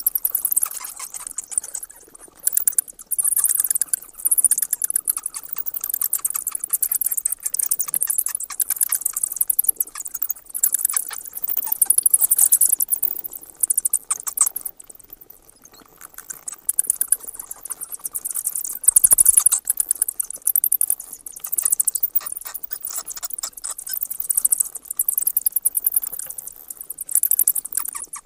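Bats squeaking and chattering: rapid, high-pitched chirps in bursts of a second or two with brief gaps.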